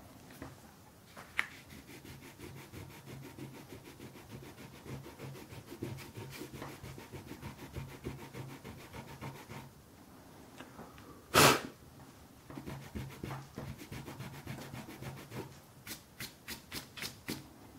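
Paintbrush scrubbing back and forth on watercolour paper in quick, even strokes. A brief louder noise comes about eleven seconds in, and a run of quick taps near the end.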